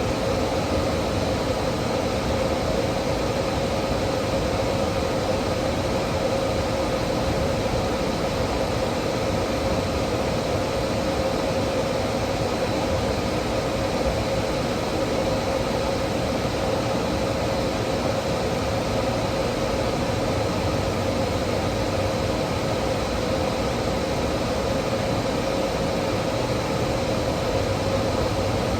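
A steady mechanical drone with a constant hum, unchanging throughout.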